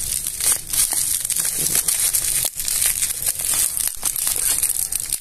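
Plastic bubble wrap crinkling and rustling as it is handled and pulled off a parcel, a dense crackle with many small clicks.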